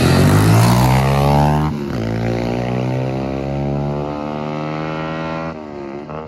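Several dirt bikes accelerating hard off the line, the engine pitch climbing as they pull away. The sound breaks off abruptly and picks up again twice, about two seconds in and near the end.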